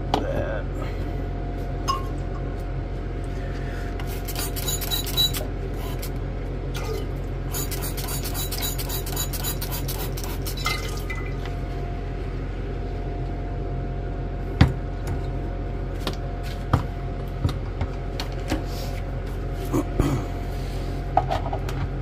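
Liquid poured into glass lab vessels in two short spells, followed by a few sharp clinks of glassware, over a steady electrical hum.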